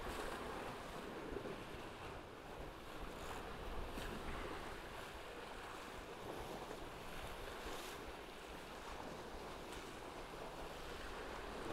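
Steady rush of water and wind aboard a Tornado racing catamaran under sail, with a few faint ticks.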